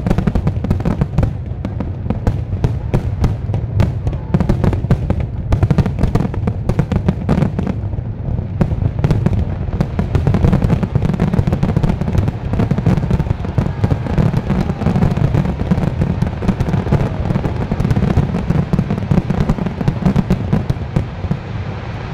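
Dense barrage of aerial fireworks shells bursting: rapid, overlapping bangs and crackling over a continuous low rumble.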